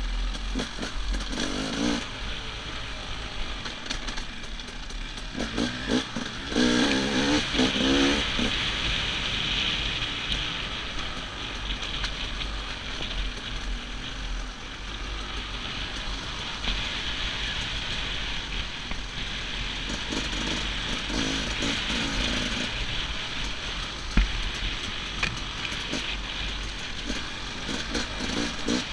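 Enduro dirt bike engine heard from the rider's helmet, revving up and easing off as it rides a rough trail, over a steady rush of wind on the microphone. The louder revs come about two seconds in, again around seven seconds in, and once more about two thirds of the way through.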